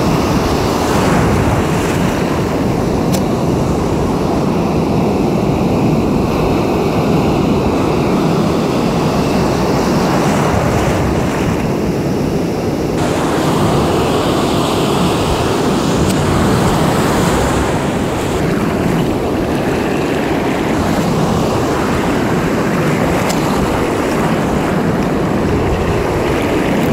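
Ocean surf breaking and washing in foam over the shore, a steady rush of water, with wind buffeting the microphone.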